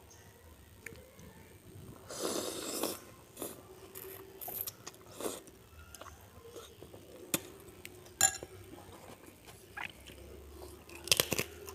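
Close-miked eating of soto: noodles and broth slurped from a metal spoon, with several sharp clinks of the spoon against the ceramic bowl. Near the end comes a loud crunch of a bite into a crisp cracker.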